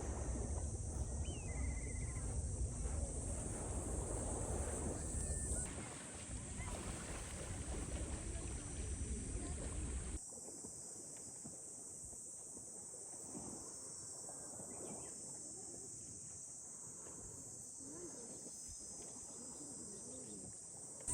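Outdoor ambience: a steady, high-pitched insect drone, with low wind rumble for the first several seconds. The sound changes abruptly twice, about six and ten seconds in, becoming quieter after the second change.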